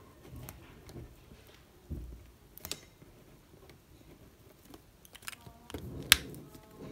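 Faber-Castell ballpoint pen writing on a small sheet of note paper, with soft scratching and light handling taps. About six seconds in comes a sharp plastic click as the pen's cap is pushed back on.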